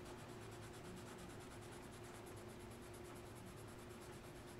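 Faint sound of a yellow colored pencil shading lightly across drawing paper.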